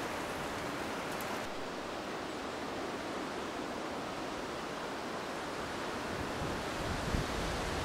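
Steady outdoor wind hiss, with gusts buffeting the microphone near the end.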